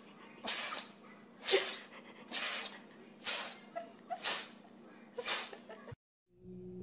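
A dog breathing heavily and noisily in a steady rhythm, about one breath a second, six in a row, then cutting off suddenly near the end.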